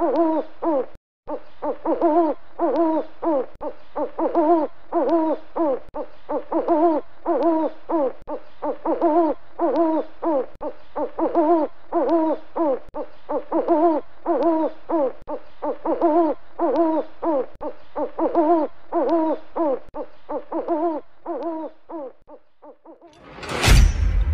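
Owl hooting: a long run of short, repeated hoots, about two a second, which stops shortly before a loud whoosh near the end.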